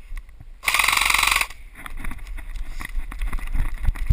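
Airsoft electric gun firing a full-auto burst of just under a second, a fast, even mechanical rattle, about two thirds of a second in. Irregular low thuds and rustling of movement follow.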